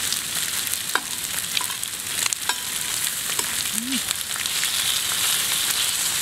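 Pork nape-neck and cheek slices with onion rings sizzling on a flat griddle: a steady hiss with scattered pops of spitting fat. A metal spatula clicks against the griddle plate a few times.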